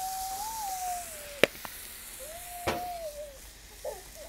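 A dog whining: two long, drawn-out high whines, then shorter wavering whimpers near the end, over the faint sizzle of the hot griddle. Two sharp clicks fall between the whines.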